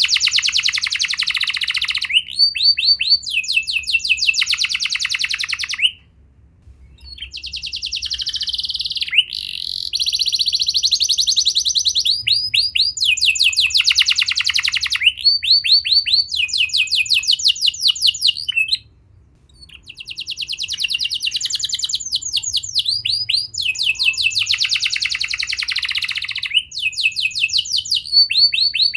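Domestic canary singing long rolling trills of rapid, evenly repeated notes, changing from one trill to the next. The song breaks off briefly twice.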